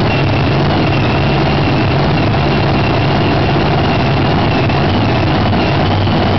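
Supercharged V8 drag-racing engine idling loud and steady, with a steady high whine over it.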